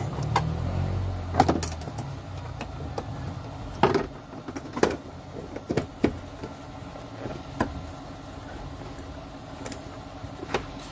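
Scattered sharp clicks and knocks, about ten spread unevenly, from hands working with tools and parts around a car, over a steady low hum. There is a low rumble in the first second and a half.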